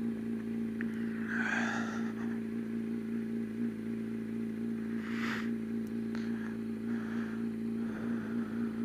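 Motorcycle engine running steadily at constant revs, with two short hissing noises about a second and a half and about five seconds in.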